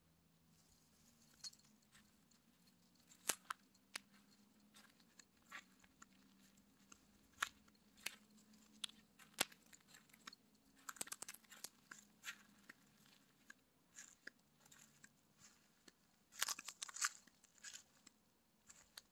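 Faint scattered crunches and scratches of a cat's claws and paws on dry leaves and soil as it clambers, with a few sharp clicks and a denser flurry about eleven seconds in and again near the end.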